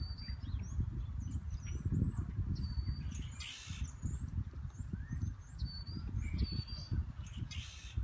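Several birds chirping with short, high whistled notes, with two longer harsh calls, one about three and a half seconds in and one near the end, over a loud, uneven low rumble.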